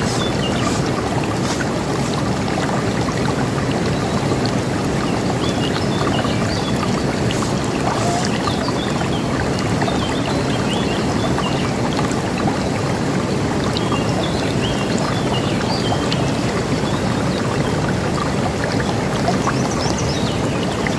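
River water rushing steadily, with small birds chirping now and then above it, more often in the second half.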